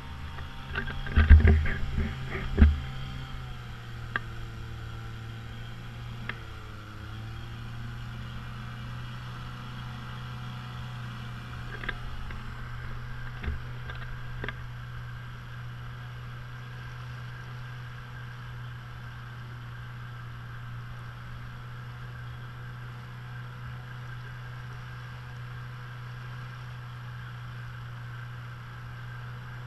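Small outboard motor running steadily as it drives an inflatable dinghy over choppy water; its pitch dips briefly about six seconds in. A cluster of loud knocks and bumps sounds in the first three seconds.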